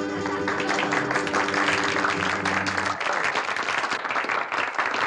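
Audience applauding, with music holding a chord under the clapping until about three seconds in; after that the clapping goes on alone.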